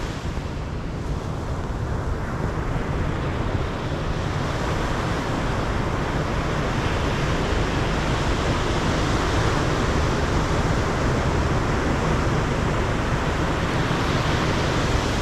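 Ocean surf breaking and washing up the beach, swelling louder a few seconds in, with wind rumbling on the microphone.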